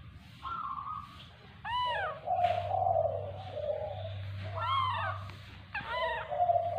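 Baby monkey giving high, whimpering coo calls: three short calls that rise and fall in pitch, each trailing into a steadier, rougher call of about a second.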